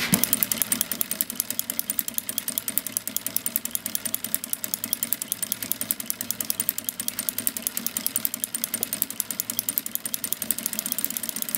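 Industrial single-needle sewing machine with a ruffler attachment running steadily, stitching and pleating fabric, with a fast, even, rhythmic clatter.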